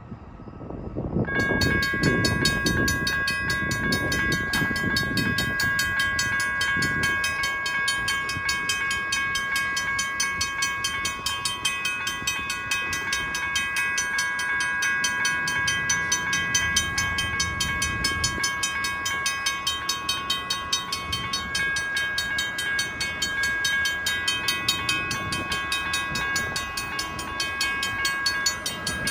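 Freight train with diesel locomotives passing close by. The sound starts suddenly about a second and a half in with a heavy rumble as the locomotives go by, then comes the fast, steady clatter of the grain cars rolling past. Several steady high-pitched tones run through it.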